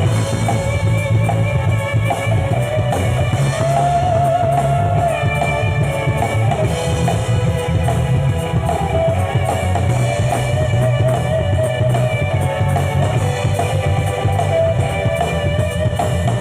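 A live band playing through a sound check, with guitar and drum kit over a steady low end, continuous and loud.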